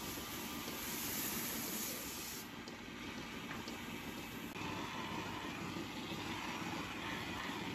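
High-pressure washer spraying water onto the stainless-steel milking units, a steady hiss that stops about two and a half seconds in. Then steady machinery noise of the milking parlour.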